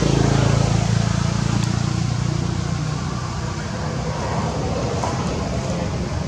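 A motor vehicle's engine running nearby, a low steady hum that is loudest in the first couple of seconds and then fades a little, as if passing.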